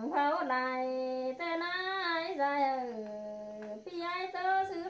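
A single voice singing unaccompanied in the Thái folk style (khắp). It holds long notes that slide in pitch, in phrases broken by short pauses about a second and a half apart.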